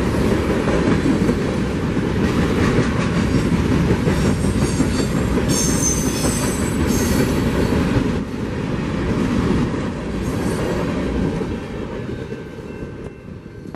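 Freight train of covered hopper cars rolling past: a steady rumble and clatter of steel wheels on the rails, with brief high wheel squeals about six seconds in. The sound fades near the end as the last car goes by.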